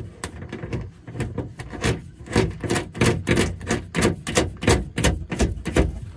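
A metal flange nut being spun by hand onto a threaded stud, close to the microphone: a quick, uneven run of small clicks and scrapes as fingers turn it. It gets busier and louder about two seconds in.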